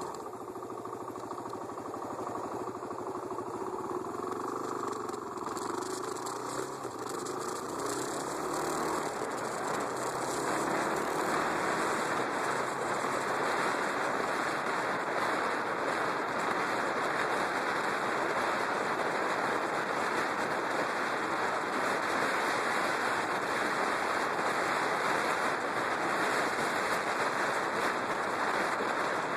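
Yamaha WR250X's single-cylinder four-stroke engine pulling away and rising in pitch as it accelerates over the first several seconds. After that a steady rush of wind and road noise on the microphone at riding speed covers it.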